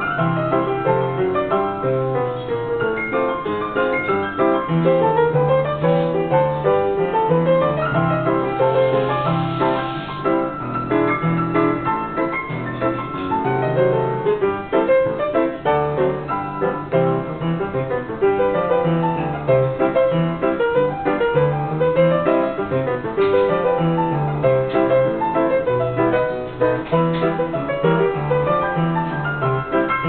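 Upright player piano playing a paper music roll: a continuous piece of piano music with many notes at once over repeating bass notes.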